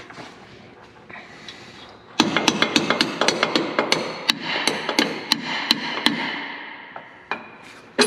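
Hand hammer driving a stuck bolt out of a dozer's steel limb riser bracket. About fifteen quick metal-on-metal strikes, three or four a second, start about two seconds in and stop around six seconds, with two lone knocks near the end.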